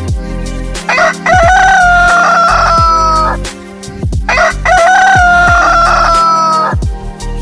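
Rooster crowing twice, each crow a long call of about two seconds that sags slightly in pitch toward the end. Music with a thumping beat plays underneath.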